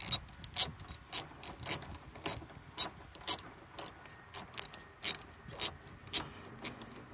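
Ratchet wrench with a 14 mm socket loosening a seatbelt anchor bolt: the pawl clicks in short, evenly spaced bursts about twice a second as the handle is swung back and forth.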